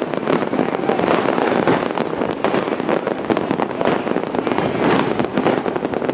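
Loud, dense barrage of firecrackers and fireworks exploding, countless overlapping cracks and bangs with no pause between them.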